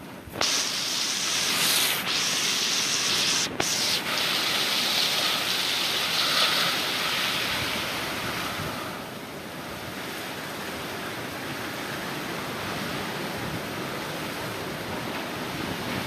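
Strong storm wind gusting, a loud steady rush that eases somewhat about nine seconds in.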